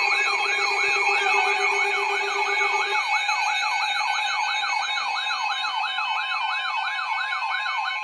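Weather radio alert: a fast electronic warbling siren sweeping up and down about three times a second over a steady alert tone, sounding before a severe thunderstorm warning is read. A lower steady tone underneath stops about three seconds in.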